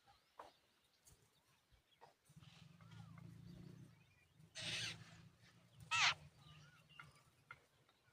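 Jungle babblers calling: a harsh, rasping call about four and a half seconds in and a short, loud, pitched call about six seconds in, with faint soft chirps in between. A low hum sits underneath through the middle.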